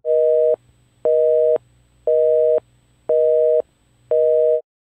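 Telephone busy signal: five steady two-tone beeps, each about half a second long, one per second.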